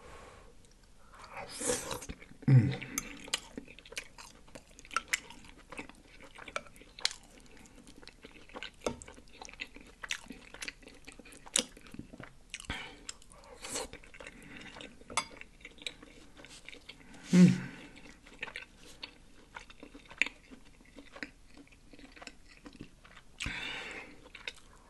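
Close-miked chewing and lip-smacking of a mouthful of pot roast: a run of small wet clicks and smacks, with a few louder mouth sounds scattered through, around two and a half seconds in, about two-thirds of the way through and near the end.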